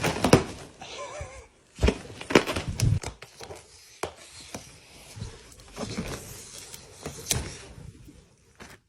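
Balloons being knocked about and rubbed: irregular sharp knocks and rustling, with a short wavering squeak about a second in.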